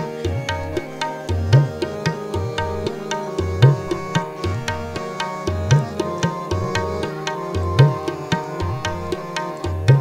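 Instrumental interlude of Sikh shabad kirtan: tabla playing a steady rhythm, with a deep bass stroke about every two seconds, under sustained melodic tones.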